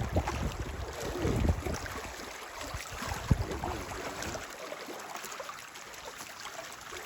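Wind rumbling on the microphone, easing off about halfway through, with faint voices in the background and a single sharp click about three seconds in.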